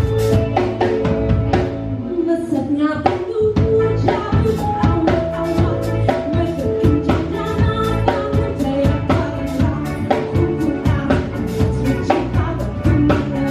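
Up-tempo song performed live: a woman singing over a band with a steady, fast drum beat.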